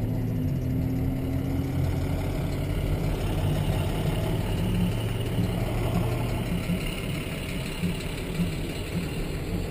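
Cabin sound of a full-size Chevrolet truck creeping in slow traffic: the engine running at a low, steady hum near idle, with road noise.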